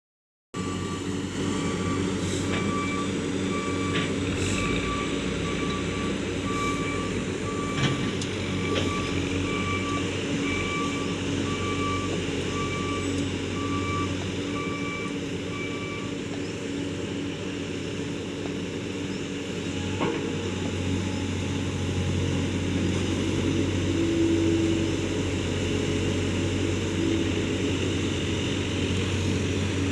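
A road roller's engine running steadily, with a reversing alarm beeping at an even pace until about halfway through.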